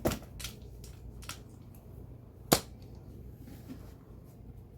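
Hand tools being handled and set down: a few light knocks, then one sharp click about two and a half seconds in.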